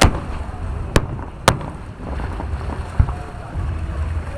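Fireworks going off: three sharp cracks, at the start, about a second in and a second and a half in, then a deeper boom about three seconds in, over a low wind rumble on the microphone.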